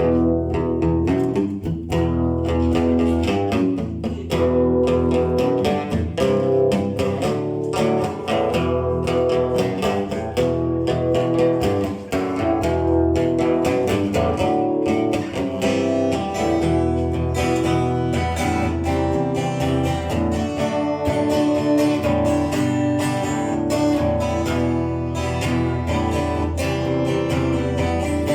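Strummed guitar playing the instrumental introduction to a song, starting suddenly at full level, with a steady low bass line beneath.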